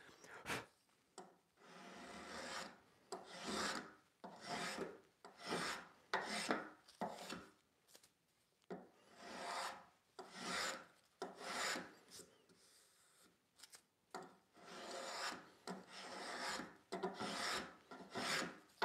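Veritas flat bottom spokeshave taking shavings from a walnut practice piece, held skewed to the cut: a run of short cutting strokes, about one a second, with a couple of brief pauses.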